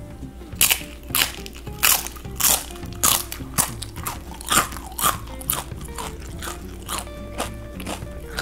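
Crisp crunching as a thin slice of deep-fried mung bean jelly (cheongpomuk) is bitten and chewed, about two crunches a second, loudest in the first few seconds and fading toward the end. Background music plays underneath.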